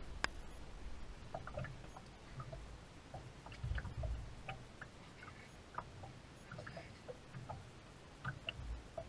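Faint, irregular light ticks and small knocks with a few low thumps, about two of them, from water lapping against a small aluminium boat's hull and the boat shifting.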